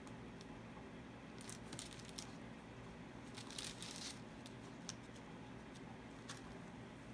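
Faint crinkling and rustling handling noise in two short bursts, about a second and a half in and again about three and a half seconds in, with a few single light clicks, over a low steady hum.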